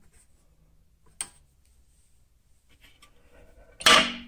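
A lathe's clear plastic chuck guard being handled and swung shut: a single sharp click about a second in, then near the end a loud hard clack with a short ringing tail. The lathe itself is not running.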